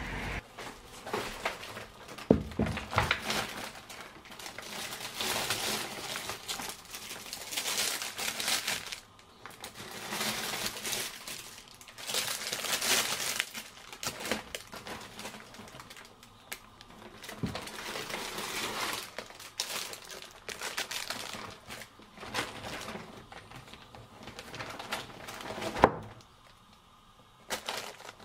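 Plastic grocery packaging crinkling and a fabric shopping bag rustling as groceries are unpacked onto a kitchen counter, with knocks as items are set down; a sharp knock comes about two seconds in and another near the end.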